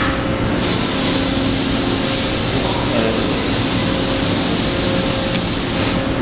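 Toshiba BTD13 CNC horizontal boring mill running: a steady mechanical hiss with a low hum under it.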